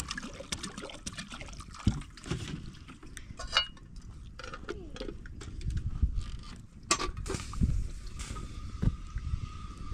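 Handling of kettles and a water jug at an open wood fire: scattered clinks and a few sharp knocks as a plastic water jug is set down and a black metal kettle is placed on the iron grate over the flames.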